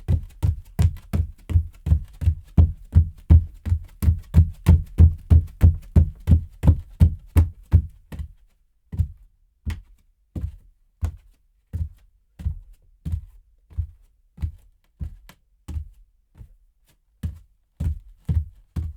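Barefoot footsteps, dull thuds of bare feet on a hard floor. For about the first eight seconds they come quick and even, about three a second, then slow to about two a second.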